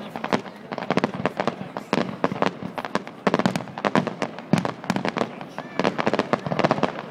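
Fireworks going off in rapid, irregular succession: a dense run of sharp cracks and bangs, several a second.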